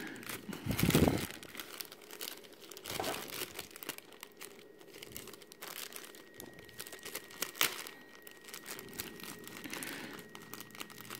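Thin clear plastic bag crinkling and rustling in irregular crackles as hands grip and twist a PVC figure through it, working a tight-fitting part loose; loudest about a second in.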